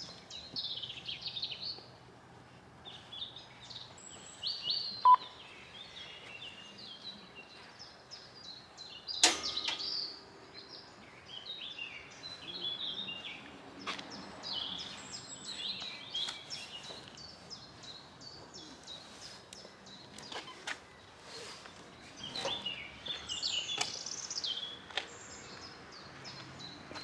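Small birds singing and chirping over a steady background, the song coming in repeated short phrases. A single sharp knock about nine seconds in.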